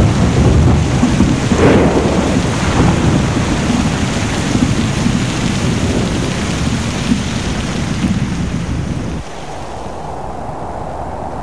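Heavy rain with thunder rumbling and slowly dying away. About nine seconds in the sound cuts suddenly to a quieter steady hiss.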